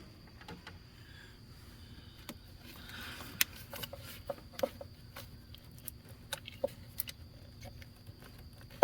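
Scattered light clicks and knocks of hand tools and parts while a coil pack is unbolted in a truck's engine bay, coming irregularly with no steady rhythm.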